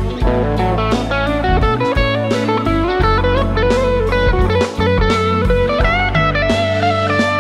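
PRS SE Swamp Ash Special electric guitar playing a lead line of single notes over a backing track with drums and bass. A note slides down in pitch near the end.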